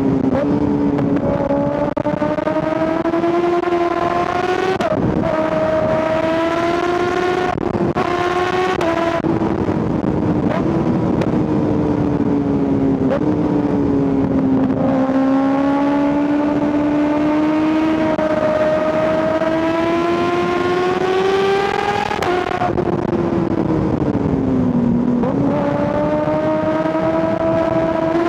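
2025 Kawasaki ZX-6R 636 inline-four sport bike engine under way, its pitch climbing steadily in each gear with several quick gear changes. Near the end it eases off and falls in pitch, then jumps back up as it drops a gear.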